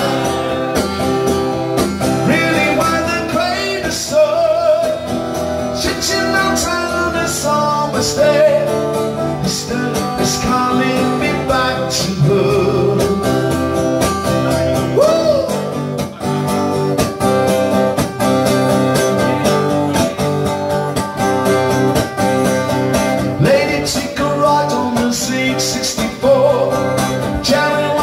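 A man singing while strumming a Takamine steel-string acoustic guitar, a live solo acoustic performance with a steady strummed rhythm.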